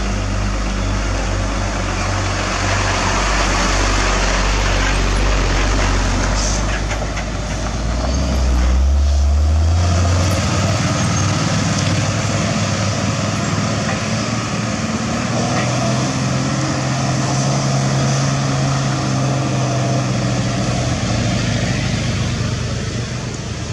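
Hino 500 dump truck's diesel engine running as the truck drives past on a gravel road, its low engine note rising about eight to ten seconds in and then holding steadier, over a constant hiss of tyre and road noise.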